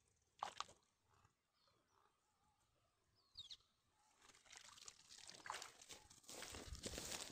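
A wet cast net being pulled from shallow river water: water splashing and trickling off the mesh, building from about four seconds in. Two short sharp sounds come near the start.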